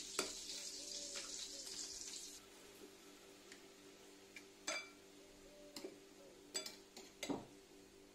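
Metal forks knocking and scraping against a ceramic bowl as a beef steak is turned in a thin flour batter: a handful of sharp clinks spread over several seconds, over a faint steady hum. A soft hiss stops about two seconds in.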